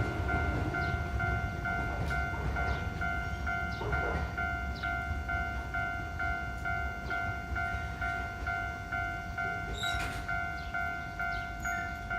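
Japanese level crossing's electronic warning bell ringing steadily, about two rings a second, over the rumble of a passing Keio Inokashira Line train that dies away, with a few knocks from the wheels.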